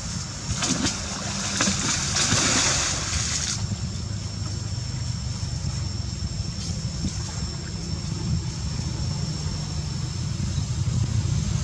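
A monkey splashing into and through pond water: a burst of splashing about half a second in that lasts about three seconds, then quieter water movement. A steady low wind rumble on the microphone runs underneath, with a faint steady high-pitched whine.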